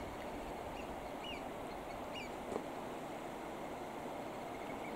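Steady outdoor background hiss with a few short, faint bird chirps about a second in and again near the middle.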